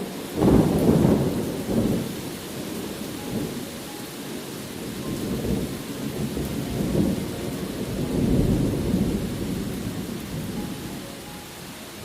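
Thunder over steady rain: a sudden loud rumble about half a second in, then more rolling rumbles through the middle that die away near the end.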